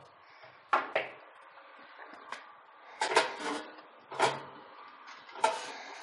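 Metal clanks and knocks from a steel PC case and tools being handled, about six separate hits spread out, several with a brief metallic ring.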